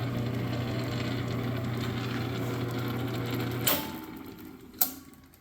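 South Bend 9-inch bench lathe running on its single-phase 115-volt motor with a steady hum. About three and a half seconds in there is a click, and the machine sound dies away as it winds down. A sharp knock comes near the end.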